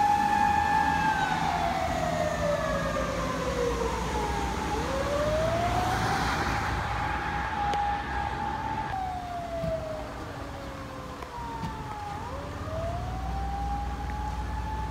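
Siren of a Tokyo Gas emergency vehicle on a slow wail. It holds a high tone, slides down over a few seconds and climbs back, twice, growing somewhat fainter, with road traffic rumbling underneath.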